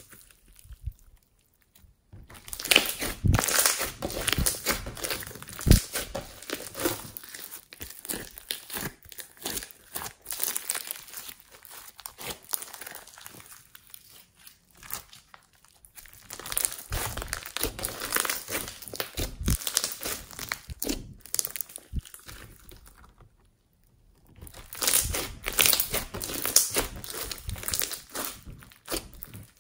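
Hands squeezing, stretching and pressing a sticky slime packed with polystyrene foam beads (floam), giving dense crunchy crackling and sticky popping. It comes in bursts, with short pauses in the first couple of seconds and again a little before the end.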